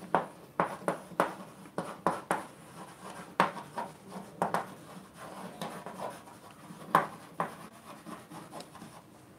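Chalk writing on a chalkboard: a run of short, irregular scratches and taps as words are written out.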